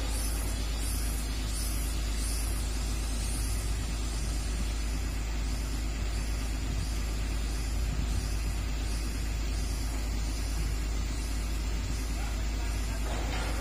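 Diesel engine of a Komatsu PC200-8 hydraulic excavator running steadily under work, a continuous low rumble. A short hiss comes near the end.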